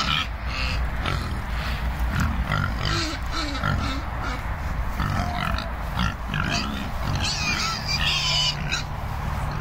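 Several pigs grunting in short, irregular calls at close range.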